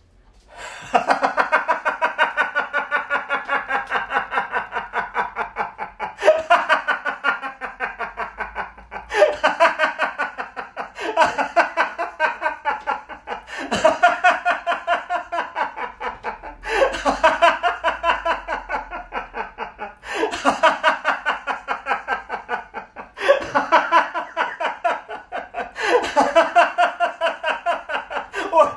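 A man laughing in long bouts of rapid 'ha-ha-ha', breaking off every few seconds to draw breath; it begins about a second in.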